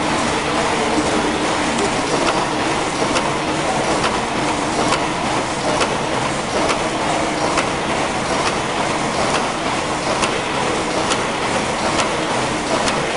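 Mill steam engine running steadily under steam: a constant mechanical noise with a sharp tick repeating a little more than once a second.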